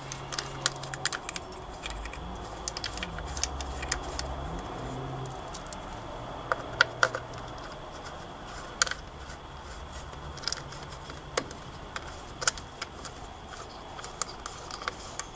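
Scattered small metallic clinks and taps of bolts, washers and nuts being handled and fitted as a plywood bulkhead plate is bolted onto a lathe chuck fixture, over a faint low hum.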